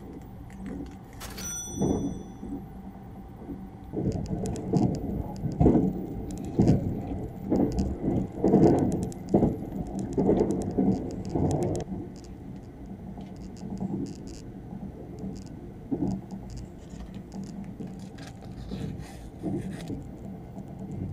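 Milk tea poured from a plastic bottle into a plastic cup, glugging in uneven pulses for several seconds, over the steady running rumble of the Sunrise Izumo sleeper train. A sharp click with a short ring comes about a second and a half in, and plastic sandwich wrapping crinkles near the end.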